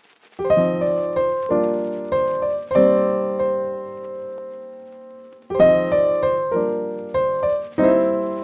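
Background music: piano chords struck and left to ring out, beginning about half a second in, with a long held chord in the middle before more chords follow.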